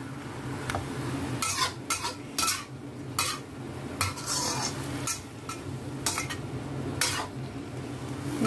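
Metal spatula scraping and clacking against a wok in irregular strokes as wilted yau mak choy (Chinese lettuce) is stir-fried, with light sizzling. A steady low hum runs underneath.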